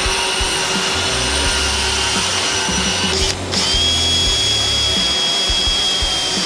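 Cordless drill running steadily as it bores holes into solid wood, with a constant high motor whine. The whine breaks off about halfway through, then starts again at a slightly higher pitch.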